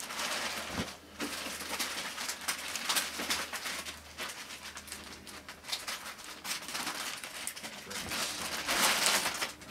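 Plastic bag wrapping crinkling and rustling unevenly as it is handled and pulled about.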